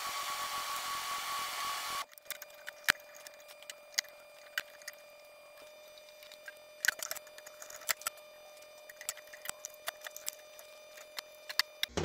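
A steady noise with a high tone for about two seconds that cuts off suddenly. Then scattered light clicks and taps of a screwdriver, small hardware and wire being handled while terminals in a metal electrical box are wired up, over a faint steady tone.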